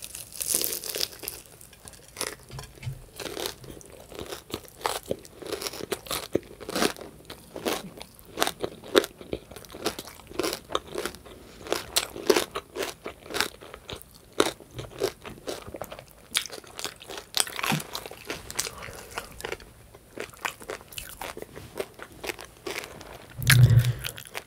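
Close-miked chewing and crunching of crispy French toast, with irregular crunches throughout and a short low hum near the end.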